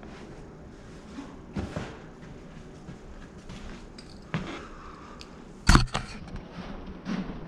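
Footsteps on hallway carpet, a few small clicks, then one loud knock and rubbing as the camera is grabbed and lifted off the floor about three quarters of the way through.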